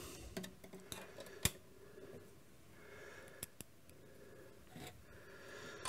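Faint handling noise with a few light clicks and taps, the sharpest about a second and a half in, from a small screwdriver and screw being handled.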